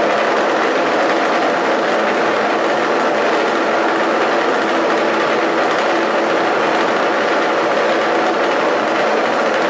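Several small engines of a hand-built eight-engine helicopter running together, a steady loud drone with no change in speed.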